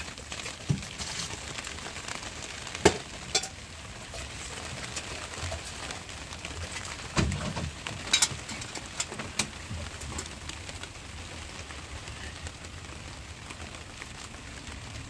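Steady rain hiss, with a few sharp cracks and knocks scattered through it.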